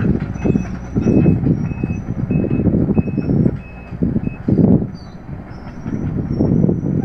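Heavy machinery rumbling, with a reversing alarm beeping steadily, a little under two beeps a second; the beeping stops about halfway through while the rumble goes on.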